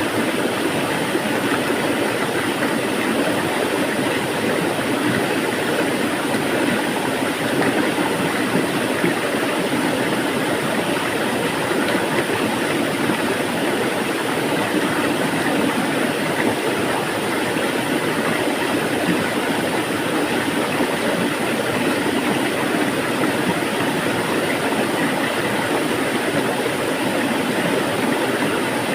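Water flowing with a steady, unbroken rush.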